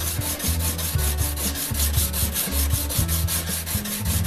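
Brazed tungsten carbide lathe tool being honed by hand on a diamond sharpening plate: a rhythmic scraping in quick, even back-and-forth strokes as the carbide edge is ground sharp.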